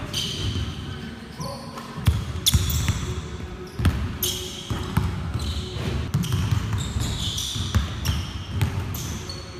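Basketballs being dribbled hard on a gym floor, with rapid uneven thuds from several balls, and short high squeaks of basketball sneakers on the court recurring every second or so.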